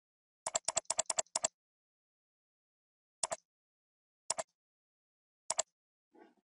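Computer mouse button clicks: a quick run of about six clicks half a second in, then three single clicks about a second apart. A faint, brief low rustle comes near the end.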